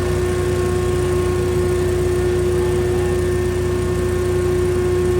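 35-horsepower insulation removal vacuum running steadily as it sucks up R38 insulation batts: a constant rushing noise with a strong, unchanging tone running through it.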